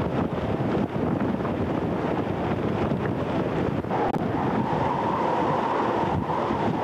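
Strong wind buffeting the camcorder microphone on a ship's open deck at sea, over a steady rush of wind and sea. About four seconds in, a steady mid-pitched hum joins it.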